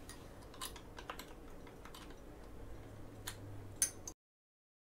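Light, scattered clicks and taps of a hex driver working small screws out of a Traxxas Slash's plastic chassis, a few separate ticks with gaps between them; the sound cuts off suddenly near the end.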